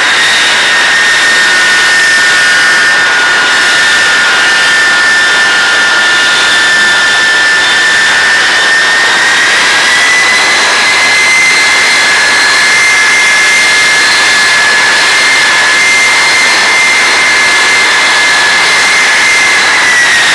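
Boeing B-52's eight Pratt & Whitney TF33 turbofan engines running at low power on the ground: a loud, steady high-pitched whine over a jet rush. The whine rises a little about halfway through as power comes up for the bomber to taxi, and begins to fall away at the very end.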